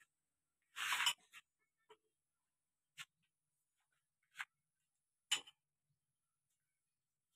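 A few scattered metal clicks and clinks from a spanner working on hydraulic hose fittings, with a short scrape about a second in and long quiet gaps between the strokes.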